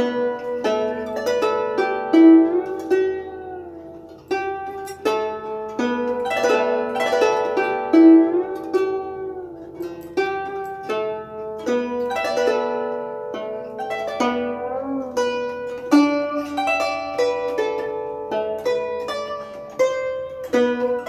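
Guzheng played solo with finger picks: a Chaozhou-style melody of plucked notes, some of them bent in pitch by the left hand pressing the strings behind the bridges.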